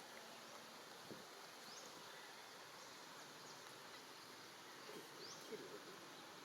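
Faint outdoor ambience: an even hiss of insects, with two short high rising chirps, one about two seconds in and one near five seconds.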